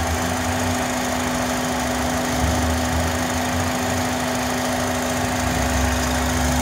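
2005 Honda Accord four-cylinder engine idling with a steady whistling hum, one constant note held like a flute, loud here where a part of the intake acts as a resonance box. The owner suspects the intake manifold as the cause.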